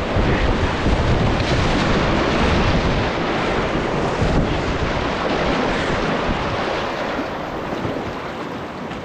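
Whitewater rapids rushing and splashing close around a kayak running a rapid, with low buffeting noise on the microphone. The rush eases off near the end as the boat comes into calmer water.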